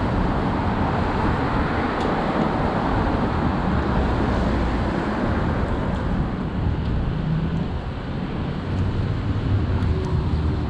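Steady city traffic on rain-wet streets: a low rumble of passing cars with the hiss of tyres on wet pavement.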